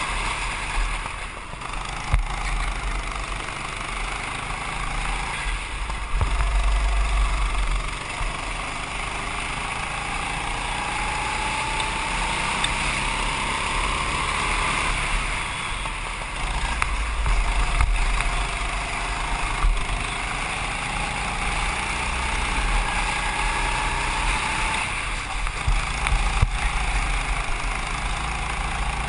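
Go-kart engine running at speed, its pitch rising and falling with the throttle, under heavy wind buffeting on the onboard camera's microphone.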